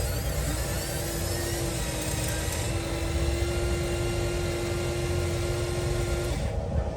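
Radio-controlled toy construction machine's electric motor whining at a steady pitch over a low rumbling, the whine cutting off near the end.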